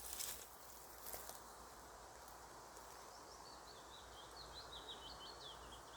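A small songbird twittering in quick high chirps over a faint steady rush of outdoor background noise, with the chirping coming in about halfway through. A couple of soft rustles near the start.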